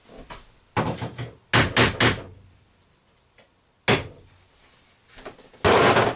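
Knocks and thumps on wood as the countertop boards and cabinetry are worked: a few light taps, then three sharp strikes in quick succession, a single knock, and a longer, heavier thud near the end.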